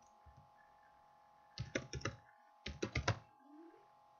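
Typing on a computer keyboard in two quick bursts of keystrokes about a second apart, over a faint steady hum.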